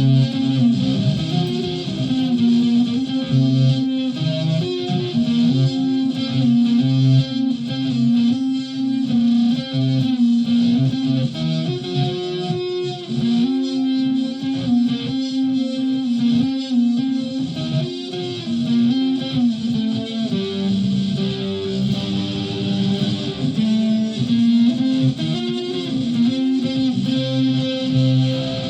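Solid-body electric ukulele played through a home-built clone effects pedal and a PA speaker, picking a moving run of single notes with a steady high hiss over the tone.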